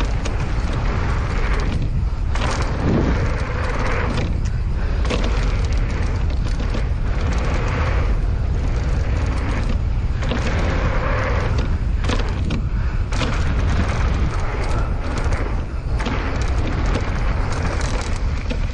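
Wind buffeting the microphone over the rolling, rattling noise of a mountain bike riding down a dirt trail, with short knocks from bumps throughout.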